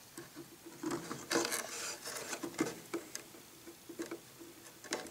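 Small servo mounting screws being started by hand into the plywood servo rails: irregular light clicks and scratches, with a short stretch of rustling scrapes about a second and a half in.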